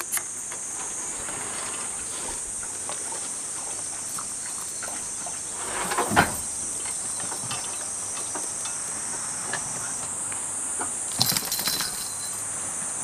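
Insects droning steadily in a high, continuous chorus. A single loud knock about six seconds in, and a scatter of taps and knocks near the end.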